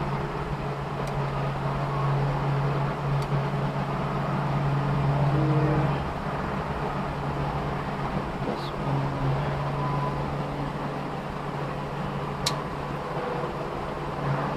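Bypass pruning shears snipping thin nandina twigs: a few sharp clicks, the loudest near the end, over a steady low background hum.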